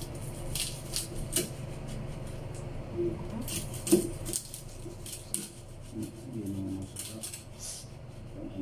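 Kitchen knives chopping crispy fried pork on a wooden chopping board: irregular crisp strikes, the sharpest about four seconds in.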